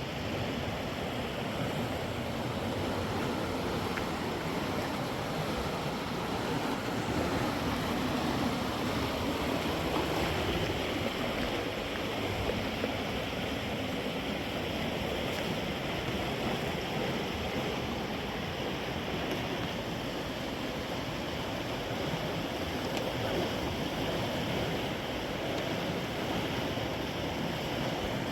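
Steady rushing of river water, an even noise without breaks.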